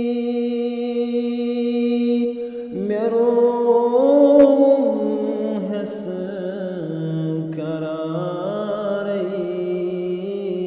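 Male voice singing a Kashmiri naat: a long held note, a brief break about two and a half seconds in, then wavering melodic phrases that settle lower.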